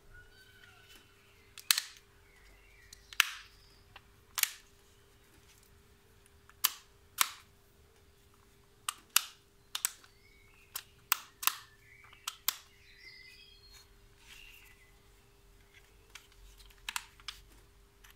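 Sharp plastic clicks from a Bosch GSB 18V-85 C cordless combi drill as its controls and chuck are worked by hand: about fifteen, spaced irregularly, some in quick pairs.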